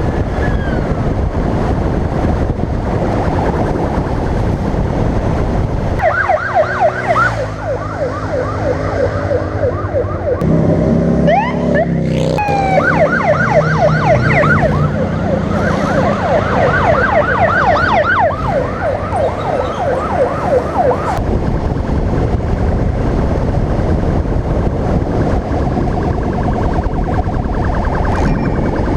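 Motorcycle engines running at road speed. A siren joins in with a fast up-and-down yelp, about three or four sweeps a second, for roughly fifteen seconds in the middle, then stops, leaving the engines alone.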